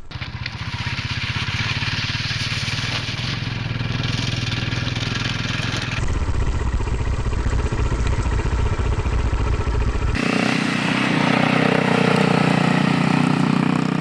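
Adventure motorcycle engines running under way on a dirt trail, in three edited pieces with sudden cuts about six and ten seconds in.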